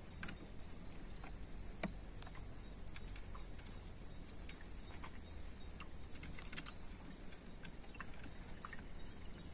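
Faint scattered clicks and taps of a screwdriver and wire ends being worked into the terminal screws of a three-phase motor starter's contactor, over a low steady rumble.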